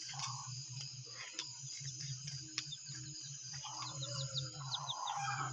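Night insects, crickets, chirping steadily, with a low call repeating in short pulses a few times a second and a quick run of high ticks about four seconds in.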